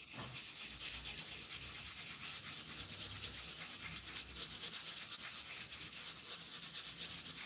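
Bristles of a pituá brush rubbed rapidly to and fro against a surface: a steady, fast scrubbing made of many quick, even strokes.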